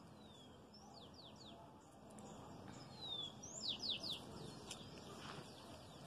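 Small bird calling: quick, high, downward-sliding chirps, a few about a second in and a louder run of three or four at about three and a half seconds, over faint outdoor background noise.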